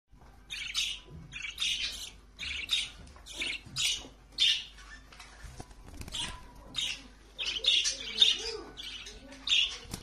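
Pet budgerigar chirping in short high-pitched bursts, roughly one a second.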